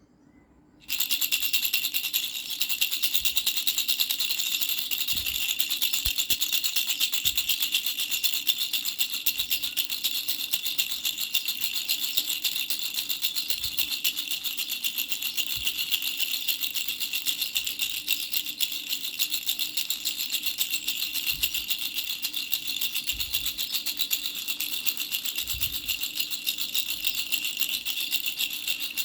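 Baby rattle with bells shaken fast and without a break, a dense, steady jingling of bright little bells that starts about a second in.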